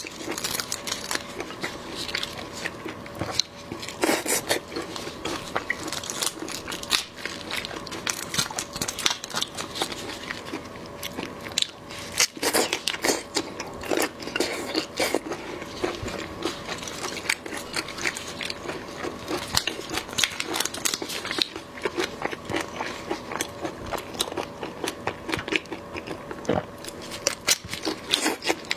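Close-miked eating sounds of marinated shrimp: wet chewing, sucking and lip smacks, with many irregular small clicks and crunches.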